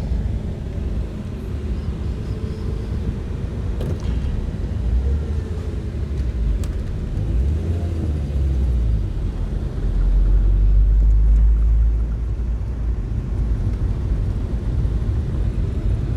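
Low, steady rumble of a vehicle on the move: engine and road noise, heavier for a couple of seconds about ten seconds in.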